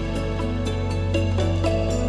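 Background music: soft, gentle instrumental with sustained low tones and a steady beat.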